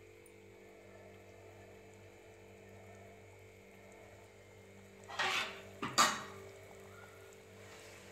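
Metal ladle scraping and clinking against an aluminium cooking pot about five seconds in: a short scrape, then two sharp knocks close together, over a faint steady hum.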